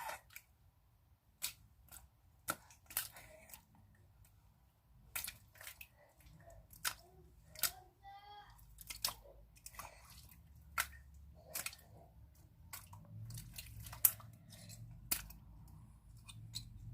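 Slime being squeezed and stretched in the hands for ASMR, giving irregular sharp pops and clicks, several a second at the busiest.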